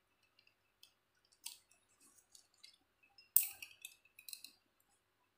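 Crimping tool pressing an RJ45 plug onto a UTP cable: a few small clicks, then one sharp snap about three and a half seconds in as the crimp closes, followed by a few more light clicks.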